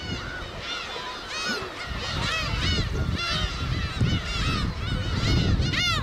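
A black-tailed gull colony calling: many gulls giving short, overlapping calls that rise and fall in pitch, several a second, with one louder call near the end, over a steady low rumble.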